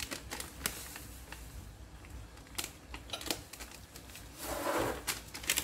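Scattered light clicks and taps as seasoning is added to noodles in a frying pan, with a short rustling sound about four and a half seconds in.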